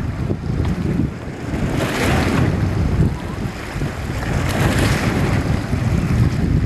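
Sea waves washing onto a beach, the surf hiss swelling twice, about two and five seconds in, over a steady low rumble of wind on the microphone.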